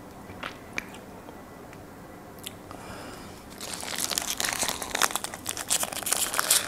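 Close-miked crinkling and crunching as a chicken kofta snack wrap in its paper wrapper is handled and bitten. It starts about three and a half seconds in, after a few soft clicks, and grows louder.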